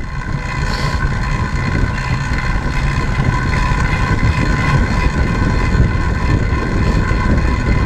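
A track bike rolling fast on the wooden boards of a velodrome: a steady rumble of tyres and wind on the microphone, with a steady whine over it.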